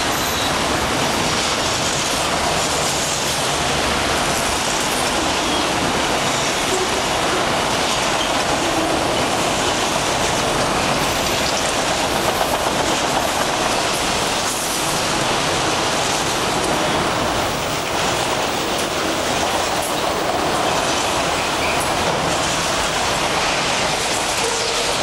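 Freight train of autorack cars passing close by at speed: a loud, steady rumble and rattle of steel wheels on the rails.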